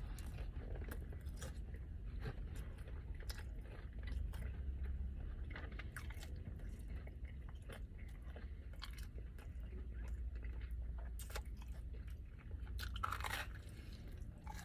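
Close-up chewing and biting into a slice of pizza, the crust crunching, with scattered small mouth clicks and crackles.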